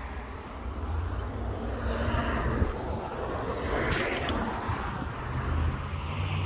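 Road traffic passing nearby: a vehicle's rush swells to a peak about four seconds in and fades, and another vehicle's low engine hum comes in near the end.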